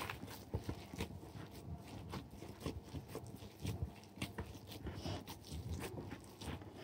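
Boiled potatoes being mashed by hand in a large bowl: a quiet, irregular run of soft squishing and crumbling crackles as the fingers squeeze the potato.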